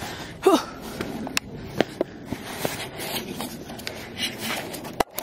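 Sneakers stepping and scuffing on sandstone, with sharp knocks of the phone being handled and a short vocal sound about half a second in. The sound cuts out briefly near the end.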